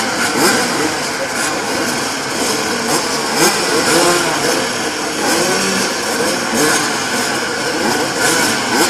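A full start gate of pre-1990 twin-shock motocross bikes, many engines revving up and down together and blipping the throttles while the riders wait on the line for the gate to drop.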